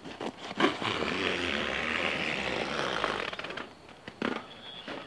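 A blade slicing in one long upward stroke through heavy vinyl sheeting stretched over a hoop coop, giving a steady scraping tear for about three seconds. A short knock follows near the end.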